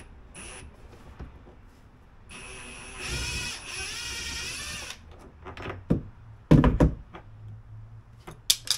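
Cordless drill with a star bit running for about two and a half seconds to back out an engine-cover screw, its whine wavering slightly. A few loud, sharp knocks follow about a second later, hard objects on plastic.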